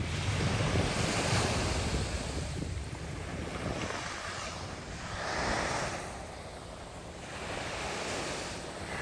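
Small surf breaking and washing up the beach in slow swells, with wind buffeting the microphone, heaviest in the first couple of seconds.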